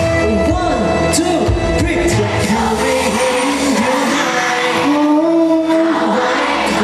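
Thai pop song performed live through a stage PA: male voices singing the melody over an amplified band track. Heavy low drum beats in the first two seconds, then the low end thins out and the vocal line carries on.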